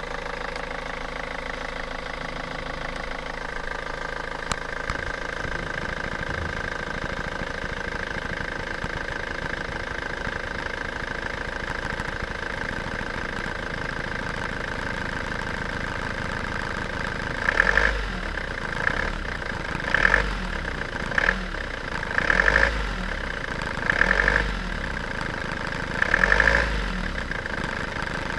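An engine running steadily, with a series of short, louder surges about every second or two in the last ten seconds.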